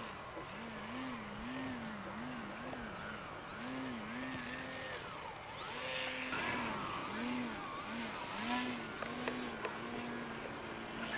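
RC EPP biplane's motor and propeller running at high power, its pitch rising and falling about twice a second as the throttle is pumped to hold the plane in a nose-up hover.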